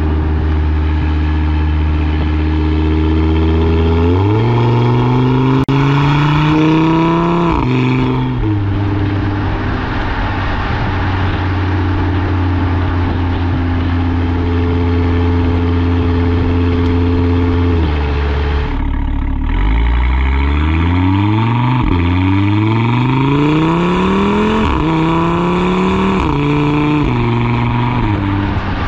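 Audi RS3 8V's turbocharged five-cylinder engine through its RS valved exhaust, running steadily at first with one valve open, then climbing in revs from about four seconds in and dropping back with an upshift near eight seconds. From about nineteen seconds, with both exhaust valves held open by an SST valve box, it pulls hard through several gears, the revs rising and snapping down at each quick upshift.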